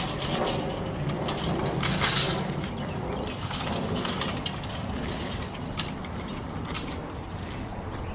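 Wire shopping cart rattling as it is pushed over a packed dirt path, a run of small clicks and clatters with a brief louder clatter about two seconds in.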